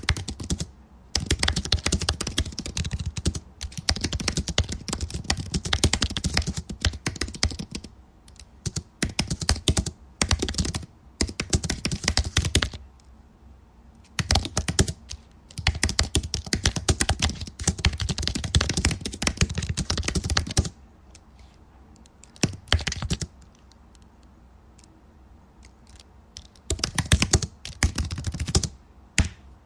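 Computer keyboard being typed on: quick runs of keystrokes broken by short pauses, with a long lull of only a few scattered taps about two-thirds of the way through and a last run near the end.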